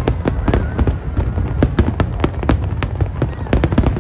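Fireworks display: aerial shells bursting in a rapid, irregular string of sharp bangs, several a second, over a constant low rumble.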